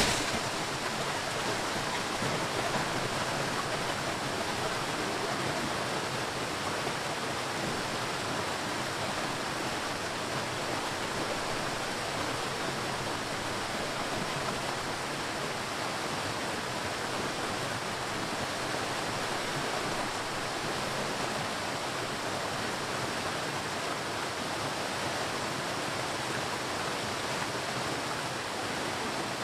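Sea waves as a steady rushing wash of surf, even in loudness with no separate crashes standing out.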